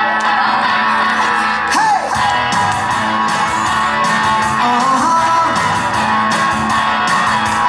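Recorded music led by strummed guitar, with a regular beat and a few gliding melodic notes.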